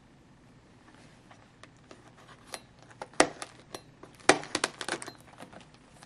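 A box of hockey trading cards being opened and its packaging handled: a run of sharp crackles and clicks that grows busier, with the loudest snaps about three and four seconds in.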